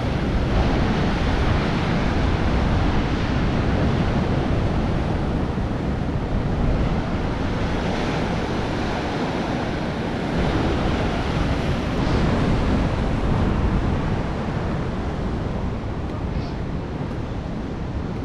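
Ocean surf breaking and washing, with wind buffeting the microphone.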